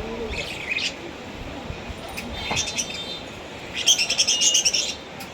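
Lovebirds chirping in short high bursts, with the loudest, busiest run of chirps about four seconds in.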